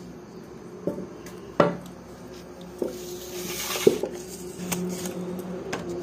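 Stainless steel bowl clinking and knocking: four sharp strikes with a short metallic ring, the loudest a little over a second and a half in and just before four seconds, with a brief hiss between them.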